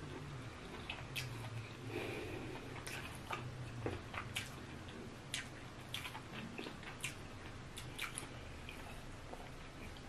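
Close-up chewing and wet mouth sounds of a person eating eba and egusi soup by hand: scattered soft smacks and clicks.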